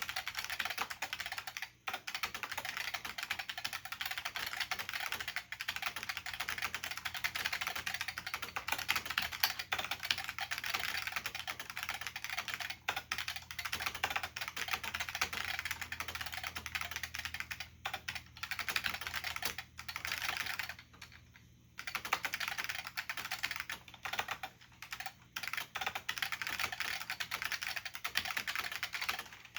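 Fast continuous typing on an IBM P70 keyboard's Alps SKCP-family switches, a dense run of clacking keystrokes broken by a few brief pauses, the longest about two-thirds of the way through.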